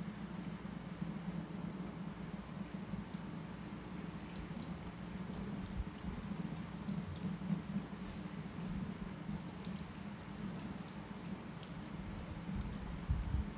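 Water from a handheld shower sprayer running over wet hair and splashing and dripping into a shampoo basin, over a steady low hum.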